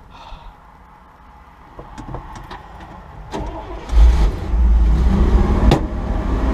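Dodge truck's engine starting about four seconds in and running on with a steady low rumble, after a few knocks in a quiet stretch.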